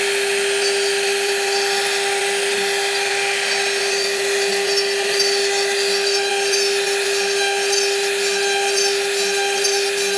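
Power tool cutting wood, running steadily with a constant whine and a rough, hissing grind over it.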